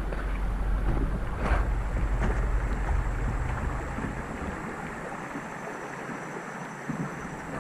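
Rushing water of a flood-swollen creek, a steady hiss, with wind rumbling on the microphone that eases off about halfway through.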